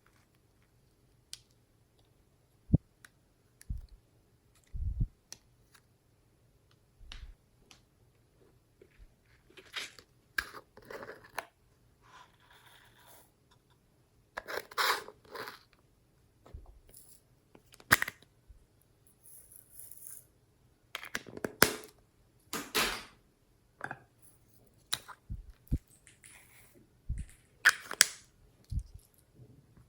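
Glossy slime being worked by hand: irregular sticky clicks and pops, with a few longer crackling squelches about a second long.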